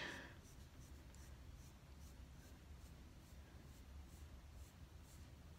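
Near silence, with faint, light scratching strokes of a slim eyebrow tool passing over the brow hairs, repeated several times.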